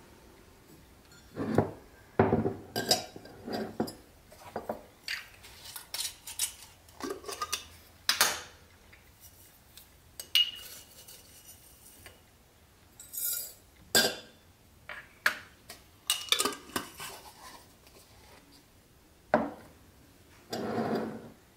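Tea things being handled on a countertop: a ceramic mug, a stainless steel tea infuser basket and a glass jar of loose tea set down, opened and fitted together, giving a string of irregular clinks, knocks and taps, with one short ringing clink about ten seconds in.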